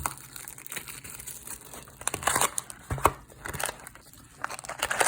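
Plastic wrapping on a sealed trading-card hobby box crinkling and tearing as the box is opened, in irregular rustling bursts with a few sharp crackles.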